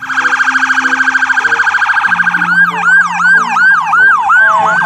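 Electronic police siren. It starts with a fast warble, changes about two and a half seconds in to a sweeping yelp of about three cycles a second, and switches to a high–low two-tone pattern near the end.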